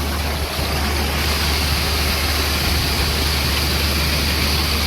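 An engine running steadily at idle with a low hum under an even hiss, the kind of machinery that keeps running while grain is unloaded into a bin.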